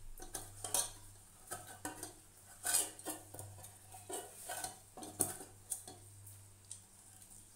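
Kitchen utensils and dishes clattering: irregular clinks and scrapes, several a second, with the loudest knocks about a third and two-thirds of the way through, thinning out near the end. A faint low hum runs underneath.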